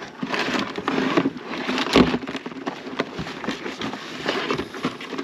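Live mud crabs being handled and sorted: irregular clicks, scrapes and knocks of their hard shells and claws, with one loud knock about two seconds in.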